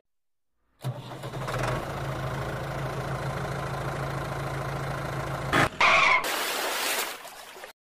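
A motor vehicle engine running steadily. It comes in abruptly after a moment of dead silence. About six seconds in there is a short, louder sound with a couple of tones, then a rushing noise that fades away.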